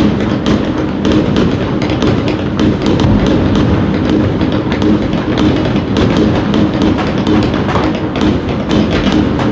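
Fireworks and firecrackers going off continuously: a dense run of bangs and crackles with music playing underneath.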